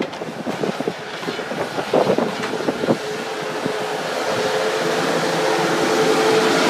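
A heavy truck drawing near: a few seconds of irregular knocks and clatter, then a steady engine drone that grows louder.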